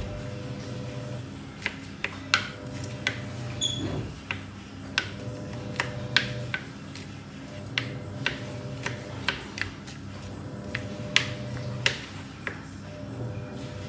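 Knife tapping on a chopping board at an irregular pace, about one or two strokes a second, as garlic is minced finely. Under it a low hum comes and goes, and a short high chirp sounds about four seconds in.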